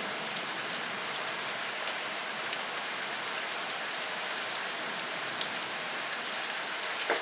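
Heavy rain falling steadily in a thunderstorm, a dense even hiss with faint scattered drop ticks.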